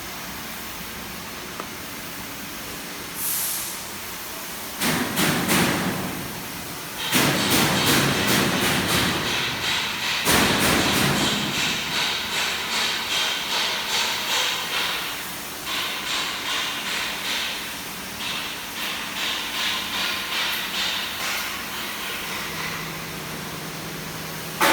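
Factory machinery running: a steady hiss, joined from about seven seconds in by a rhythmic clatter of roughly two pulses a second.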